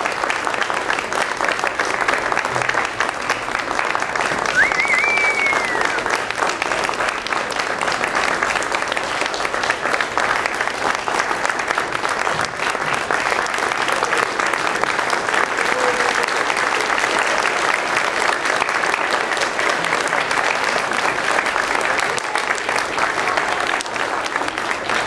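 Audience applauding steadily, a dense crowd of clapping hands, with one short rising-then-falling whistle about five seconds in.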